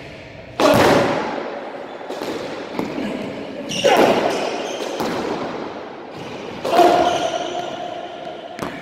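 Squash rally: rackets striking the ball and the ball smacking the court walls. There are three loud, hard hits about three seconds apart, each ringing out in the court's echo, with lighter knocks in between.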